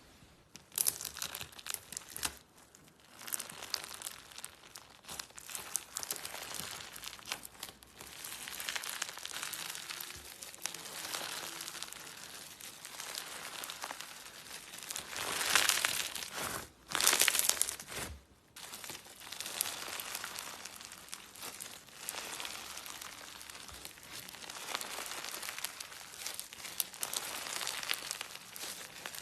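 Slime being squeezed and worked by hand, making a dense, crinkly crackling and popping, with a couple of louder bursts about halfway through.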